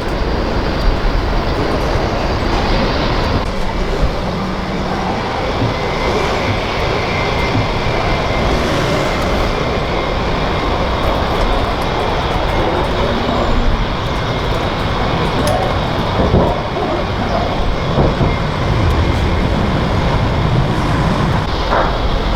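Jet aircraft engines running at the airport: a loud, steady wash of engine noise with a faint high whine through it.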